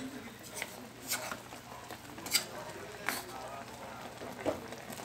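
Adobo simmering in a pan on the stove: a faint steady hiss broken by a handful of sharp pops, about one a second.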